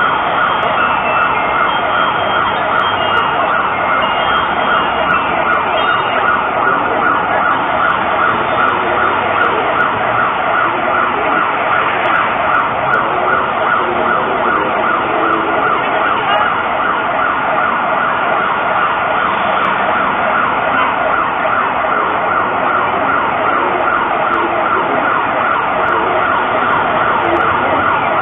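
Mexico City's seismic alert siren (SASMEX) sounding over public loudspeakers: a loud, fast-repeating wailing tone that holds steady throughout, warning that an earthquake has been detected and shaking is coming.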